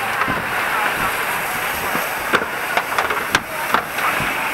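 Fire hose nozzle set to a solid stream, spraying water in a steady hiss. A few sharp cracks come through about two and a half, three and a half and four seconds in.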